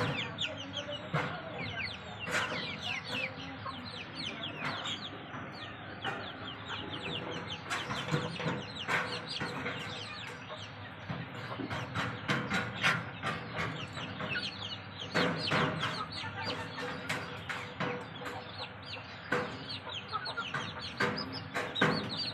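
White Cochin and Mottled Cochin chicks peeping: many short, high cheeps, each falling in pitch, overlapping throughout.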